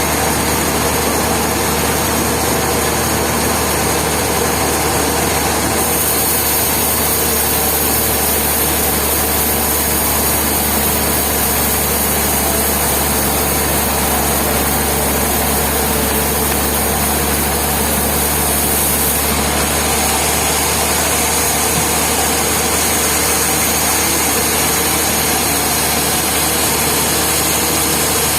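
Sawmill machinery running steadily with an engine-like hum. A high hiss joins in about six seconds in and drops away about two-thirds of the way through.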